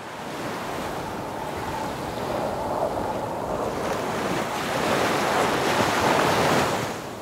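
Ocean surf washing in, a steady rush that swells to its loudest near the end and then falls away.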